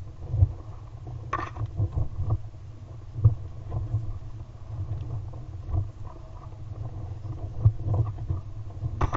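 Wind buffeting the microphone of a GoPro camera carried aloft on a sled kite: an uneven low rumble with irregular short knocks scattered through it.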